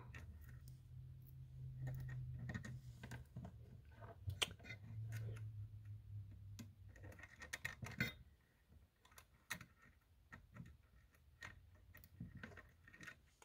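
Faint scattered clicks and scrapes of bare copper wire ends being pushed against a fire-alarm module's screw terminals, where the wire won't go in. A faint low hum comes twice.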